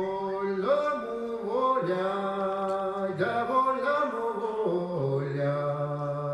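A man's voice singing a slow, drawn-out folk melody in long held notes, stepping down to a lower held note about five seconds in.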